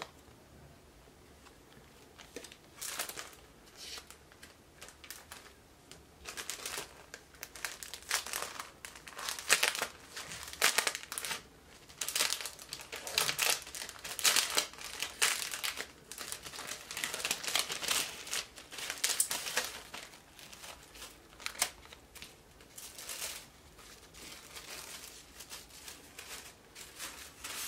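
Plastic shrink wrap crinkling and tearing as it is peeled off a CD album by hand, in irregular handfuls that are busiest midway and thin out near the end.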